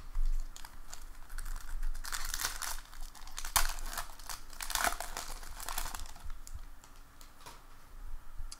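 Foil wrapper of a Bowman baseball card pack crinkling and tearing as it is ripped open and peeled off the cards. The crackling is busiest in the middle and thins out near the end.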